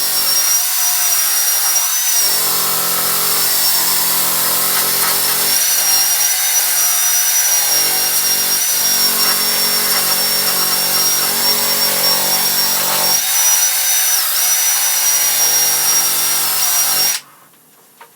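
Electric grinder running at speed with a steady high whine, grinding down plug welds on a sheet-steel truck roof skin; a heavier lower grinding layer comes and goes as the wheel bears on the metal. It cuts off suddenly about a second before the end.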